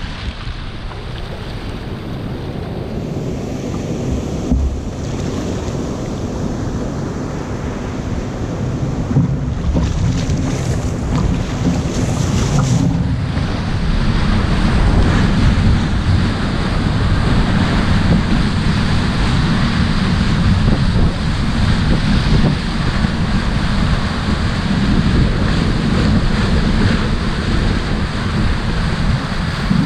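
Foaming whitewater rushing along a sit-on-top kayak as it surfs a broken wave, with wind buffeting the microphone; the rush grows louder about halfway through.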